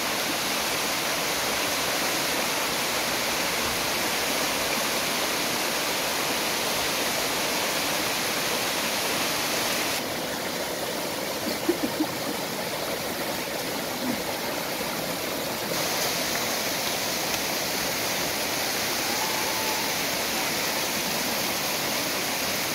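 Steady rush of falling water, duller for several seconds in the middle.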